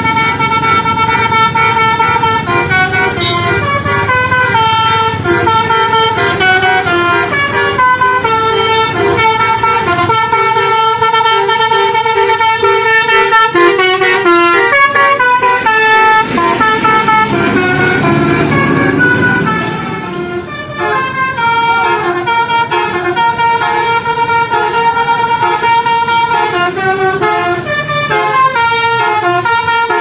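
Tour bus's 'telolet basuri' musical horn playing a melody of held, stepped notes over the bus engine's running. The tune pauses briefly about twenty seconds in, then another melody follows.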